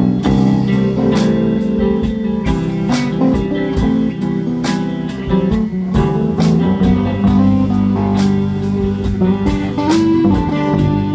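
A live band playing electric guitars over a drum kit, with a steady beat of drum hits.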